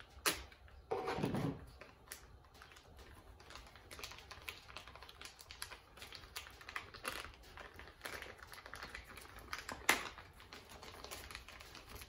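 Plastic parts bag crinkling and rustling as it is handled and opened, with many small clicks. There are sharp clicks about a quarter second in and near ten seconds, and a louder rustle about a second in.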